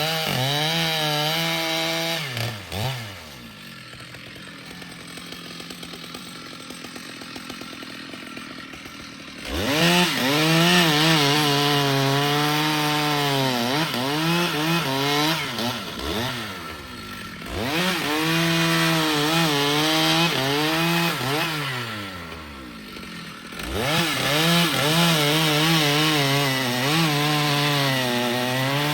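Stihl two-stroke chainsaw cutting wood at full throttle, its pitch wavering under load. A few seconds in it drops back to idle for about seven seconds, then revs up and cuts again, easing off briefly twice more.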